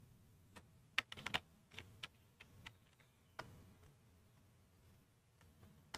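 A few faint, irregular clicks and taps from a hand working a computer's input device while drawing on screen, with a quick run of them about a second in.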